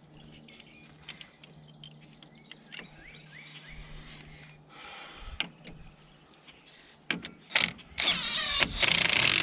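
A handheld power tool whirring in short bursts, louder and longer near the end, driving bolts back in. Faint bird chirps and a low steady hum come before it.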